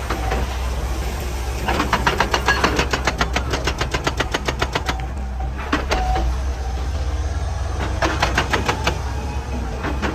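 Excavator's diesel engine running steadily, with two spells of rapid, even hammering, about ten blows a second, from a hydraulic breaker striking rock.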